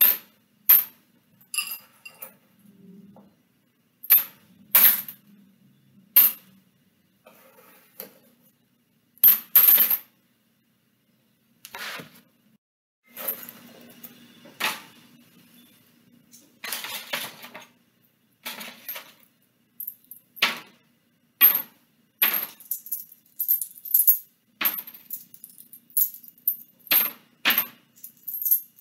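Pennies clicking one by one as they are set down on a folded paper bridge and onto each other. The clicks come at irregular spacing and more often in the second half.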